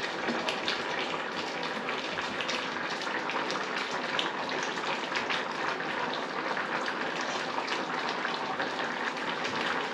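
Pot of stew on an electric hob bubbling at a simmer: a steady hiss with many small pops and crackles.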